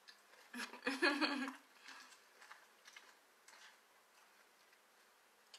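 A person eating crunchy cereal: a short hummed "mm" over crunching about a second in, then a few faint clicks of chewing and the spoon.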